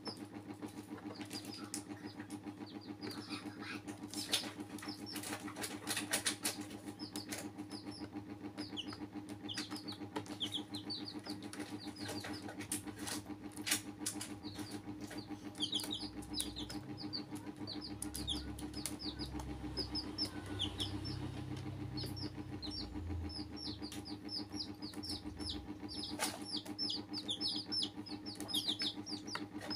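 Baby chicks peeping over and over, many short high falling cheeps overlapping, with scattered sharp taps on the plastic basin. A steady low hum runs underneath, and a low rumble comes in around the middle for several seconds.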